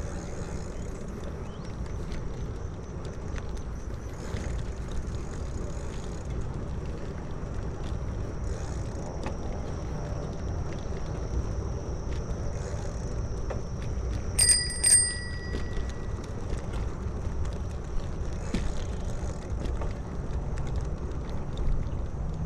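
Bicycle bell rung twice in quick succession, the second strike about half a second after the first, over the steady wind and road rumble of a moving bicycle.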